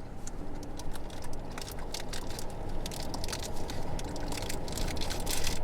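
Wind buffeting the microphone as a steady low rumble, with frequent short crackling rustles that grow denser toward the end.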